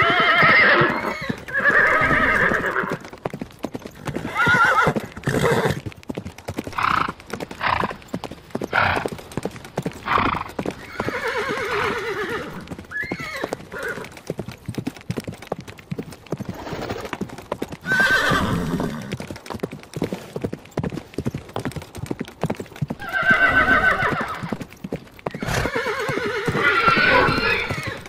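Horses whinnying several times, with the longest whinnies at the start and near the end, and hooves clip-clopping in sharp knocks between the calls.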